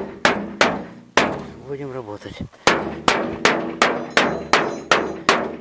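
Wooden mallet beating the thin sheet-metal body of a garden wheelbarrow to straighten it. Steady blows come about three a second, and the metal rings briefly after each one, with a pause of about a second and a half before the second second.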